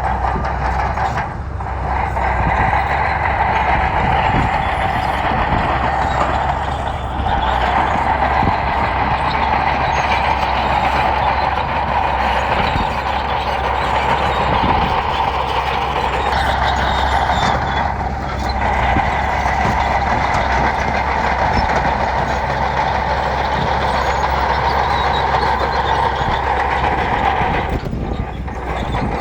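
Heavy bulldozer working: its diesel engine runs steadily under load while its steel tracks clatter and grind, with brief lulls a few times.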